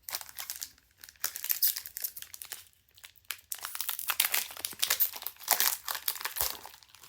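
Trading-card booster pack wrapper crinkling and tearing as the pack is opened, in several bursts of crackling with a short lull about three seconds in.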